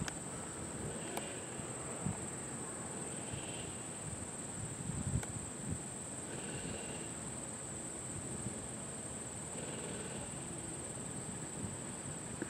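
Crickets chirring in one steady high-pitched tone over a low, even rumble of outdoor background noise.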